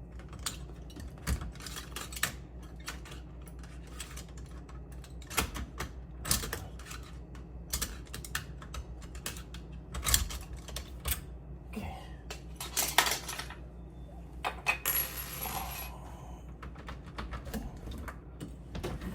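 Metal lock hardware being handled during a deadbolt installation: scattered clicks, knocks and clinks of small metal parts, with a short rasping scrape about fifteen seconds in.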